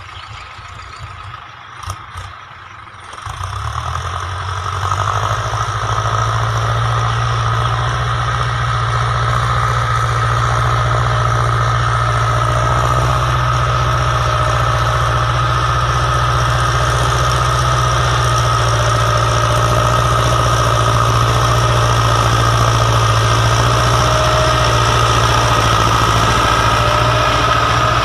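Ford 6600 tractor's three-cylinder diesel engine running steadily under load while pulling a disc harrow. The drone rises sharply about three seconds in and grows a little louder as the tractor comes closer.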